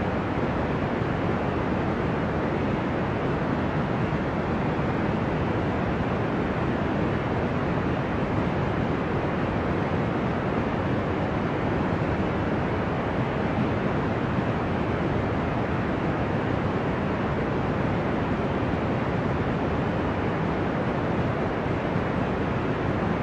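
Steady, deep white noise made to sound like the ocean, even and unchanging with no separate waves breaking, its weight in the low and middle range.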